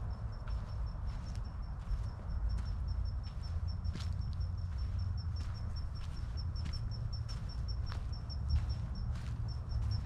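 Footsteps crunching on a dirt trail strewn with dry leaves at a steady walking pace, about three steps every two seconds, over a low rumble. A thin, high chirping pulses several times a second throughout, pausing briefly near the end.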